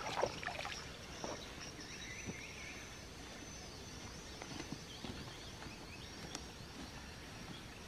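A few faint splashes of water as hands rinse mud off in a puddle, then quiet rural outdoor background with faint high chirps and soft footsteps on grass.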